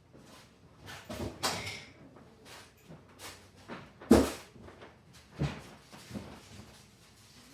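Irregular knocks, clicks and a scrape, like hard objects being handled and set down, with the sharpest knock about four seconds in.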